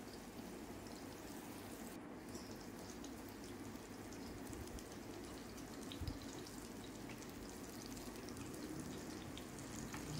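Chicken seekh kababs shallow-frying in a little oil over a low flame: a quiet, steady sizzle with fine crackling. A soft knock about six seconds in, as steel tongs turn the kababs.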